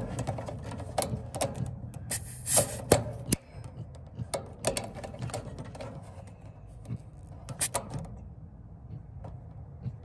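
Clicks and clacks of a WEH quick-connect refrigerant hose coupler being snapped onto and pulled off an AC unit's brass service valve port, with a short hiss about two and a half seconds in.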